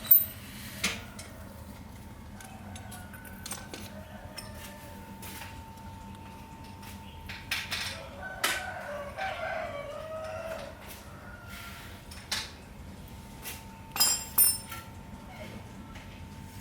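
Sharp metal clinks and knocks, scattered and loudest at the very start and twice near the end, from handling the old rusty bicycle's parts, with chickens clucking in the background.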